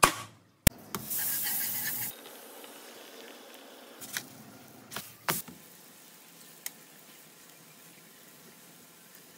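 Pancake batter frying in oil in a hot pan: a steady sizzle, louder and brighter for about a second near the start, with a few sharp clicks scattered through it.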